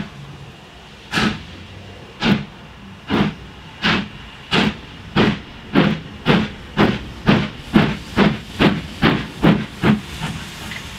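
Exhaust beats of Taff Vale Railway O2 class 0-6-2 tank locomotive No. 85 working hard as it accelerates: sharp chuffs that quicken from about one a second to over two a second. Near the end the beats stop and a steady steam hiss remains.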